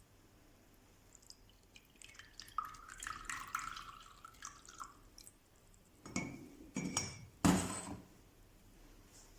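Water pouring and splashing in a glass vessel for about three seconds, followed by three clinks and knocks of glass and metal; the last is the loudest.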